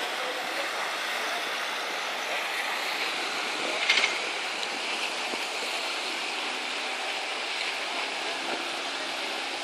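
Steady rushing of wind and sea water on an open-air microphone, with a brief rub of a finger against the camera about four seconds in.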